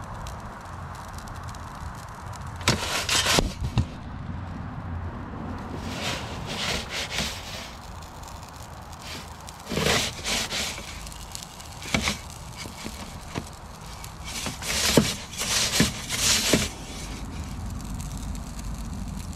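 Sharp crackles and scraping clatters come in short clusters every few seconds over a low, steady rumble, from the fire and cooking at a wood-fired portable pizza oven.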